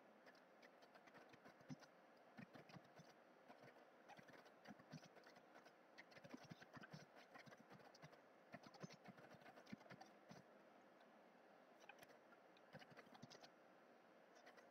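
Faint, irregular clicking of computer keyboard keys being typed, easing off briefly a little past the middle before a last flurry.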